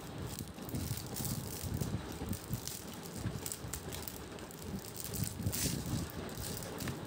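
Clear plastic shrink-wrap on a spiral sketchbook crinkling and crackling as it is handled and turned over, with soft bumps of handling.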